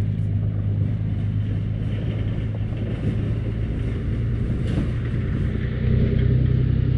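Motorboat engine droning steadily, growing a little louder about six seconds in.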